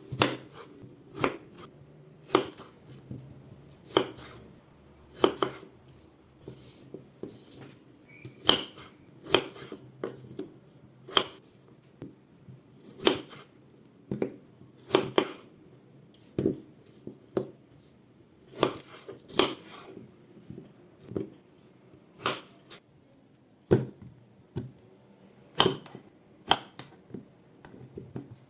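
Knife chopping on a cutting board, in slow, single cuts at about one a second with uneven spacing.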